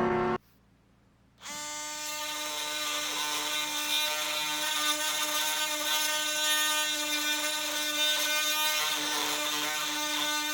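DeWalt DCS356 cordless oscillating multi-tool running with a steady buzz, its cheap saw blade cutting into nailed wood. It starts about a second and a half in and stops just before the end.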